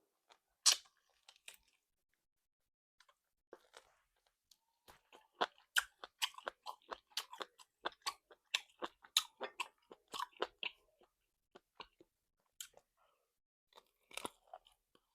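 A person chewing salt-baked chicken close to the microphone: irregular crisp crunching and wet mouth clicks, sparse at first, coming thick and fast from about five to eleven seconds in, with another short cluster near the end.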